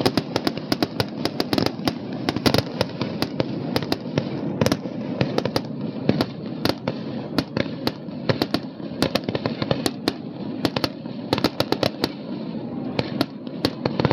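Aerial fireworks going off in a dense, rapid volley: many sharp bangs and crackles, several a second, over a continuous rumble.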